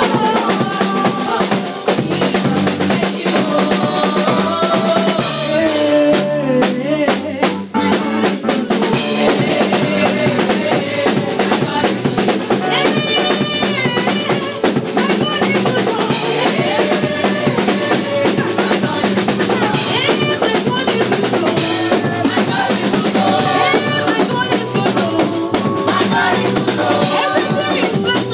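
Music played with a prominent drum kit: bass drum, snare and rimshots keeping a steady beat under melodic lines.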